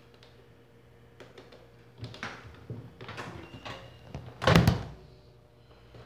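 Microwave oven door being opened by its push-button release, with a few light clicks, then knocks and rattles of handling, and a single loud thunk about four and a half seconds in.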